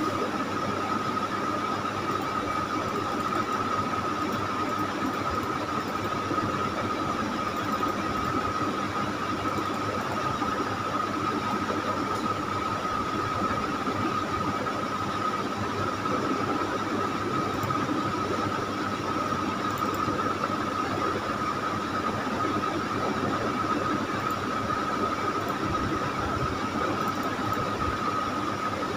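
Steady background noise with a constant high-pitched whine running through it, unchanging throughout.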